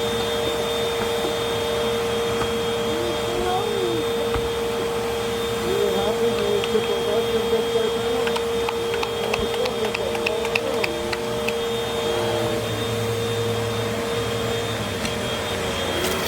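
Vacuum cleaners running steadily while picking up a mess from the floor, with a run of small ticks in the middle.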